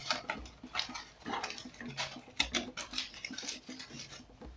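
Aluminium foil crinkling and crackling in irregular bursts as hands press and crimp it down over a cooking pot to seal it.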